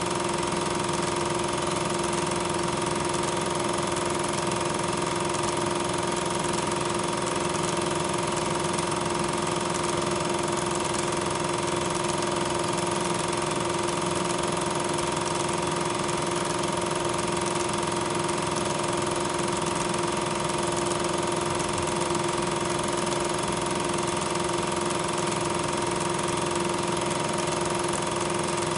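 A loud, steady mechanical drone with two constant tones, one low and one higher, over an even hiss. It does not change when the picture cuts from one train to another.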